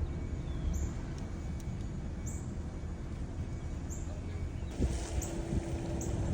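A bird chirping repeatedly, short high calls about once a second, over a steady low outdoor rumble.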